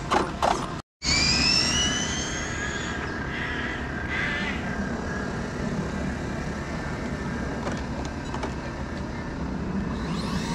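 High electric whine of an RC car's brushless motor rising in pitch for about two seconds as the car accelerates, then fading into steady background noise.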